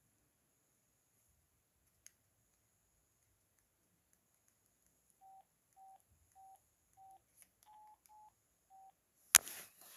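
Kyocera flip phone keypad tones: seven short beeps about half a second apart as keys are pressed to navigate its menus, two of them a little higher in pitch. Near the end comes one sharp, loud knock.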